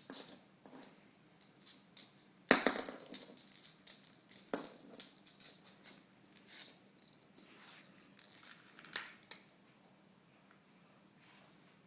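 A toy ball rattling and clattering as it is handled, with one sharp knock about two and a half seconds in; the rattling dies away near the end.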